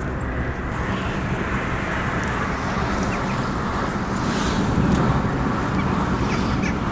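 Motor vehicle engine running on the road with steady road and wind noise, growing slightly louder partway through.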